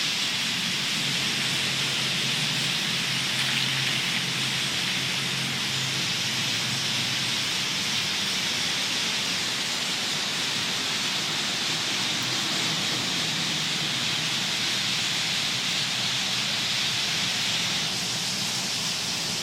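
Dense chorus of a huge flock of birds chirping in the trees, thousands of calls blending into one steady high hiss.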